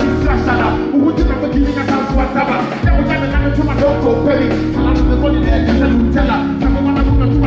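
A live band playing music, with a strong bass line and drum hits.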